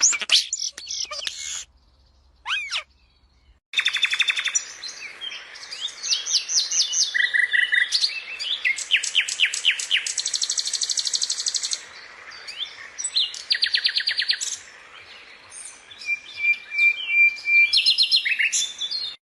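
A songbird singing: a varied song of rapid trills and fast runs of repeated high chirps, broken by a near-quiet gap of about two seconds near the start.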